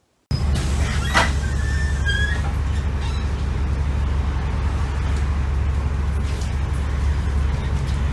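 Steady low rumble of a city bus engine idling at a stop, heard from inside the bus, cutting in suddenly just after the start. A few short high beeps sound about two seconds in.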